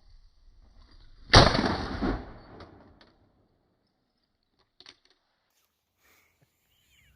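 .410 shotgun with a 22-inch barrel firing a single shot, with a boom that rings out for about a second and a half.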